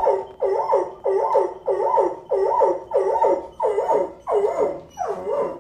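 A dog giving a rapid string of short, pitched howling calls, about two a second, each dipping and rising in pitch.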